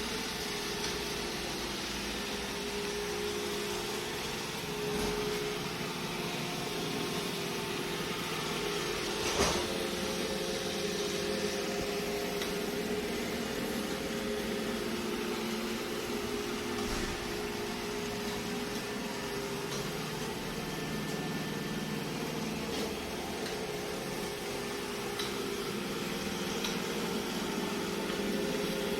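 iRobot Roomba j7+ robot vacuum running with a steady motor hum over a hiss, and one short knock about nine seconds in.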